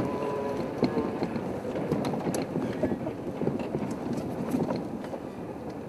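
Safari game-drive vehicle's engine running as it moves off over rough ground, with many short rattles and knocks from the bodywork.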